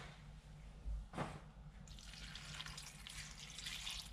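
White wine poured from a glass bottle onto a pot of raw shrimp shells: a faint, steady splashing trickle starts about two seconds in, after a light knock about a second in.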